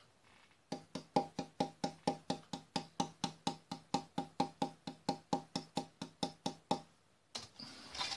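Light finger taps on a fiddle's top plate with its bass bar fitted, held up by its edge: an even run of knocks, about four or five a second, each ringing briefly at the same pitch. The plate is being tap-tested to measure its mode 5 resonance, which comes out at 358 Hz. Near the end comes a brief rustle as the plate is set down on the bench.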